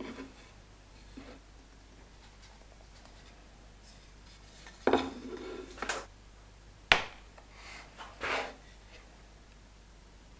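Small metal marking tools, a steel square and a pointed scribe, handled against a hardwood workpiece on a wooden bench: short scratchy scrapes a little before halfway and again later, and one sharp metal tap about seven seconds in.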